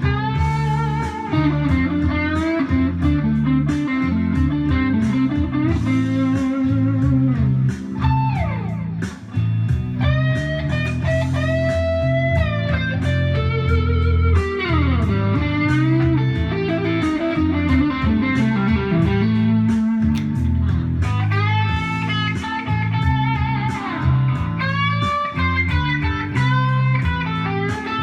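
Electric guitar played through a Roland Cube 60 amplifier, a blues lead with sliding notes that glide down in pitch over held low notes.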